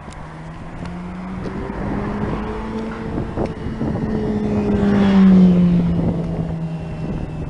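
A motor vehicle passing on the road, its engine hum growing louder to a peak about five seconds in and then dropping in pitch as it goes by.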